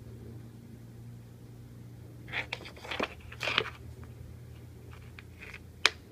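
A kitten scuffling and clawing at a cable on a hard floor: a flurry of scratchy rustles a couple of seconds in, then one sharp click near the end, over a steady low hum.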